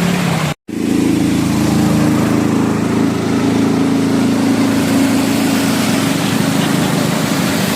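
An engine running steadily under a broad hiss, cut off by a brief dropout about half a second in and then steady again.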